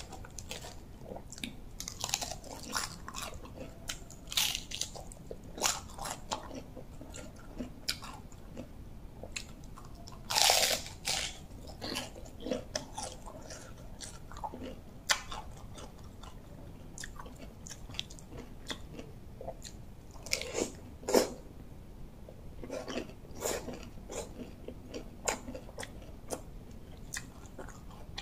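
Close-up eating sounds: irregular crunching and chewing of raw cabbage and rice noodles, with a few louder crunches scattered through.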